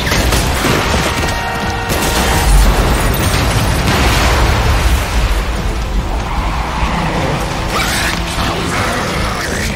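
Action film soundtrack: music under a dense layer of crash and impact sound effects, with a heavy boom about two and a half seconds in.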